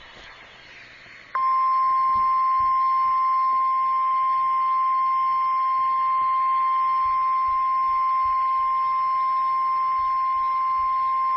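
NOAA Weather Radio 1050 Hz warning alarm tone: a single steady beep that starts abruptly about a second and a half in and holds for about ten seconds, after a moment of faint radio hiss. The tone signals that a warning message follows.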